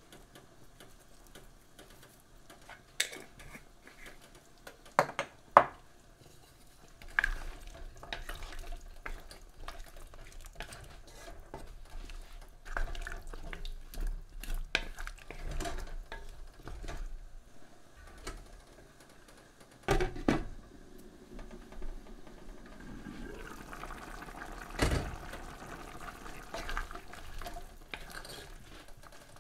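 A wooden spatula stirring chunks of chicken and potato in broth in a pan: wet sloshing and scraping, with a few sharp knocks of the spatula against the pan.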